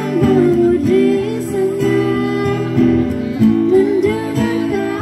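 A woman singing a slow song into a microphone, accompanied by two strummed acoustic guitars.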